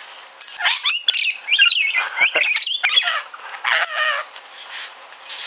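Rainbow lorikeet chattering: a rapid run of high-pitched squeaks and warbling chirps, densest in the first three seconds, with a shorter burst of chatter near the end.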